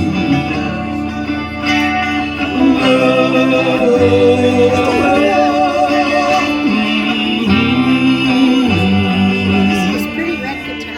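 Music: a guitar-led passage in a slow rock ballad, held chords under a wavering melodic line, with no clear words.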